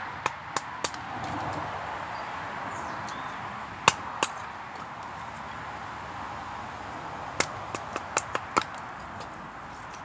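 Sharp wooden knocks and cracks of kindling being split with a knife and a wooden baton: three quick knocks just after the start, two about four seconds in, and a quick run of about seven near the end. A steady rush of wind runs underneath.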